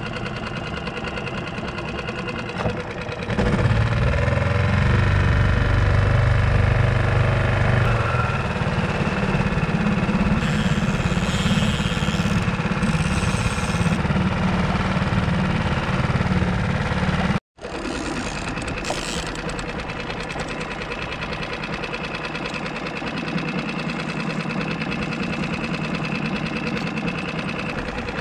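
Small outboard motor on a skiff running under way, throttling up about three seconds in and running louder, then after a momentary break in the sound running steadily at a lower pitch and level, as when trolling.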